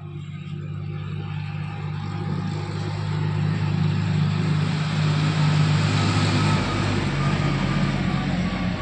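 A motor vehicle engine running close by, growing louder over the first five seconds and then holding steady, with a deep drone under a wide noise.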